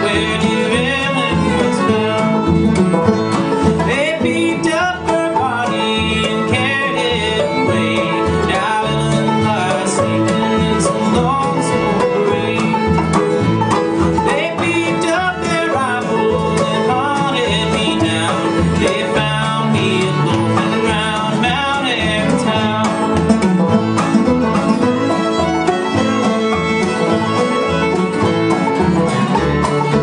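Old-time string band playing a bluegrass-style tune: fiddle over strummed acoustic guitar and upright bass, with no singing.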